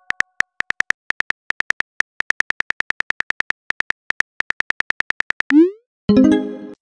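Rapid run of phone-keyboard typing clicks, about eight a second, as a message is typed out in a texting app. The clicks stop about five and a half seconds in, followed by a short rising swoosh and a brief pitched tone near the end.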